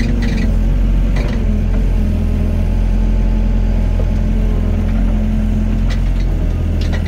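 Doosan excavator's diesel engine running steadily with a deep, even drone, with a few light clicks about a second in and near the end.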